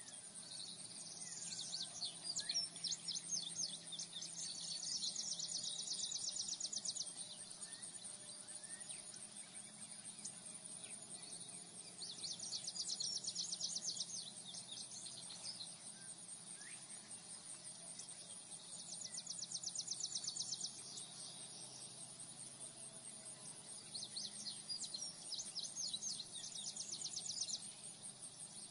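Outdoor nature ambience: a steady, high, fast insect trill throughout, with louder bursts of rapid trilling, each two or three seconds long, returning every five to seven seconds, and a few short bird chirps.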